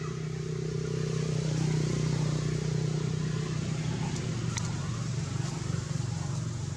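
A motor vehicle's engine running close by with a steady low hum, growing louder over the first two seconds and then slowly easing off as it passes.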